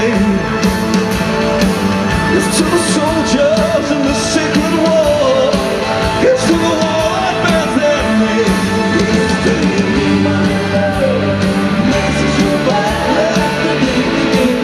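Live rock band playing loudly with a singer, with drums, guitars and keyboards, heard from within the concert crowd.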